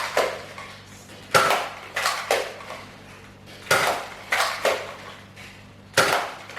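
Toy foam-dart blaster being primed and fired repeatedly: sharp plastic clacks coming in small groups, a new group about every two to two and a half seconds.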